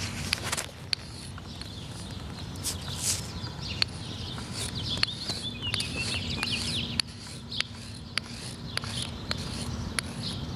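Sidewalk chalk scraping and rubbing on a concrete sidewalk in short scratchy strokes, with scattered sharp taps of the chalk on the pavement.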